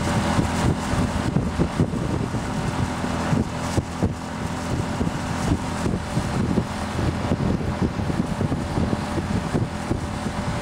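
A boat's motor running steadily, a low hum with wind buffeting the microphone.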